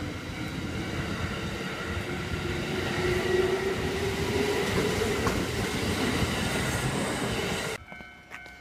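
Kintetsu electric train running past close by: a loud, steady rumble of wheels on rails with a faint motor whine that rises slightly midway. It cuts off abruptly near the end.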